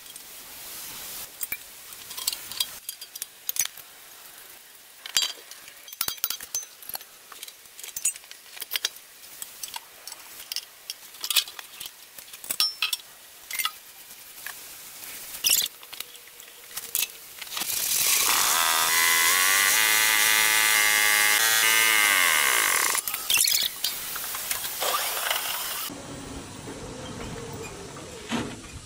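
Metal engine parts and hand tools clinking and knocking as a single-cylinder diesel engine is reassembled. Partway through, a loud power tool runs for about five seconds, its pitch falling as it stops, and near the end the sound changes to a steady low hum.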